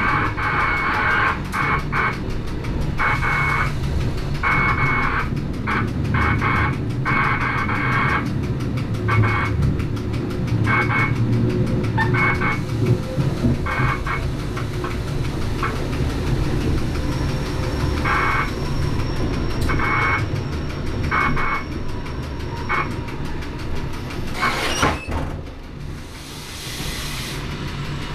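Rhaetian Railway electric motor coach running slowly along street track, heard from the cab: a steady low hum with short high squeals that come and go, from the wheels on the curved track. A brief hiss near the end.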